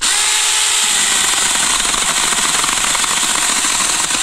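Battery-powered Seesii mini chainsaw running at full speed, its small electric motor and chain cutting through a standing sapling about seven-eighths of an inch thick. The sound starts suddenly and holds steady.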